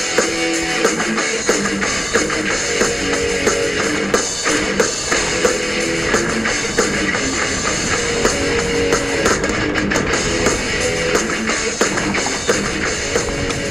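Background music: guitar playing over a steady drum beat.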